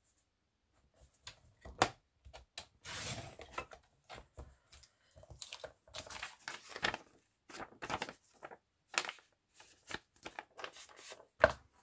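Fiskars sliding-blade paper trimmer cutting a page of an old children's book: a short rasping stroke about three seconds in, then paper rustling with light clicks and taps as the trimmed page is handled.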